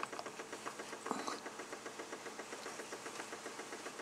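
A small machine running with an even, rhythmic pulse of several beats a second, and a short plastic tap about a second in as a trim plug is pressed into the wall charger's plastic cover.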